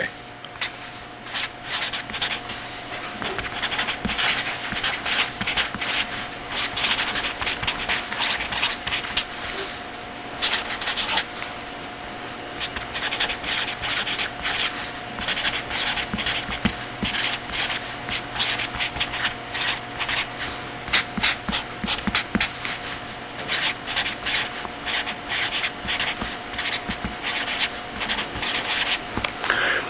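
Handwriting: a long, irregular run of quick rubbing and scratching strokes of a writing tool on a writing surface, with a steady hum underneath.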